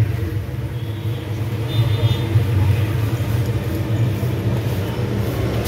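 Steady low rumble of an engine running nearby, like traffic or an idling motor vehicle.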